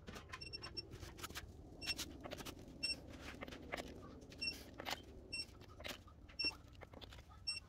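Digital torque wrench beeping in short, high single beeps about once a second as lug nuts are pulled up toward its 165 ft-lb setting. Scattered clicks and knocks of the ratchet head and socket run between the beeps.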